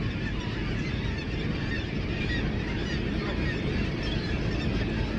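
A nesting seabird colony on the cliffs calling, many birds at once in a continuous chatter of short cries, over the steady low rumble of the tour boat's engine.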